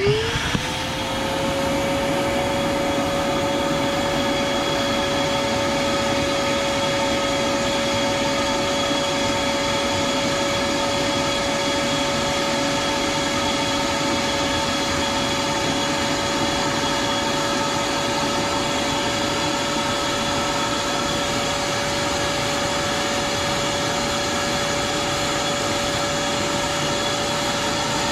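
Shop-Vac wet/dry vacuum, converted to a pond vacuum, switching on: its motor whine rises to full speed within about a second, then runs steadily, drawing pond water and debris up the wand.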